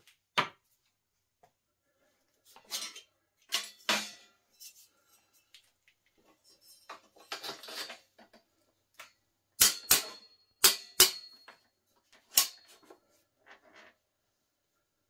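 Small metal bicycle headset parts clinking sharply, five times in about three seconds near the middle, with cloth rubbing against the steel frame before that as the head tube is wiped out with a rag.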